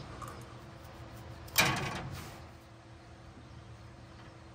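A single sudden knock about a second and a half in, dying away over about a second, over a faint steady hum.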